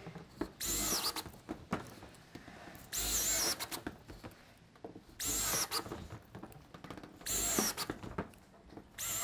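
Cordless drill driving roofing screws through corrugated steel roof sheeting into the frame. There are four short runs about two seconds apart, and a fifth starts at the end. Each run's whine climbs and then drops as the screw seats, with light clicks and taps between the runs.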